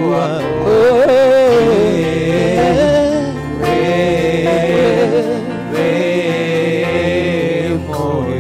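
Swahili gospel worship song: a sung vocal line with vibrato over keyboard and band accompaniment, with held sung notes.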